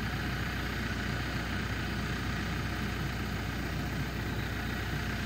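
Engine idling steadily with an even low hum, holding level throughout.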